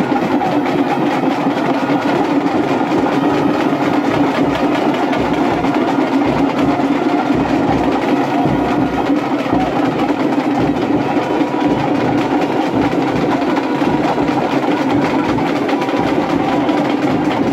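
Loud, unbroken din of a dense festival crowd, with fast, heavy drumming pulsing underneath.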